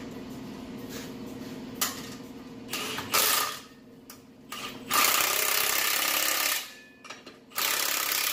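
Impact wrench running in bursts, the longest about a second and a half, tightening the clamps on a new muffler.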